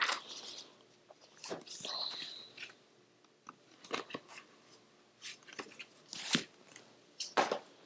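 Eyeshadow palettes being handled: scattered soft clicks, taps and rustles as cardboard palette cases are moved, set down and picked up.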